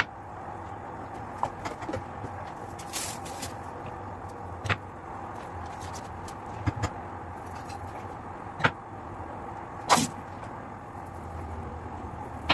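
Kitchen handling sounds on a wooden cutting board: about eight sharp, irregularly spaced taps and clicks of a knife, plastic tub and packaging being set down and handled, over a steady background hiss.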